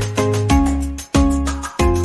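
Upbeat background music with a steady beat, plucked notes and a bass line.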